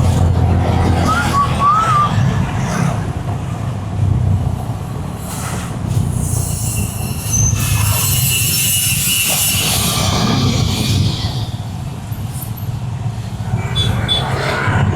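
Steady low rumble of road vehicle traffic, with a high-pitched squeal lasting several seconds in the middle and a few short warbling chirps about a second in.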